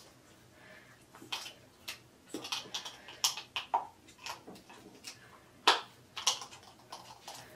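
Irregular small plastic clicks and taps as hands work the cap of a travel-size plastic bottle, with one sharper click about three quarters of the way through.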